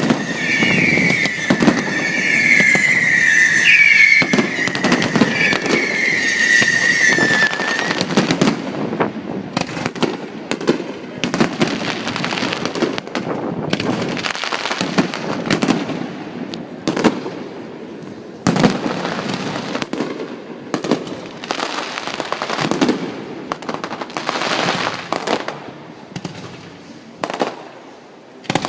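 Fireworks going off: a high, wavering whistle with sudden upward squeals for about the first eight seconds, then a long run of sharp bangs and crackles in clusters that grow gradually quieter toward the end.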